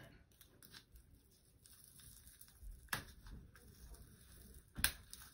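Faint crinkling and picking at a bath bomb's wrapper by fingers, with scattered small clicks and two sharper clicks, about three seconds in and near the end.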